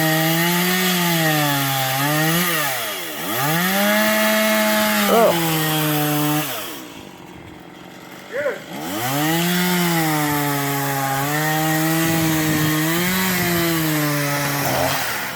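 Chainsaw cutting wood, its engine pitch sagging and climbing back again and again as the chain bites. About six seconds in it eases off and goes much quieter for about two seconds, then revs up and cuts again.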